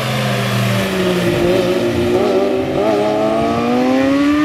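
Two sport motorcycles on a racetrack, their engines falling in pitch as they slow into a corner, then rising steadily as they accelerate out of it.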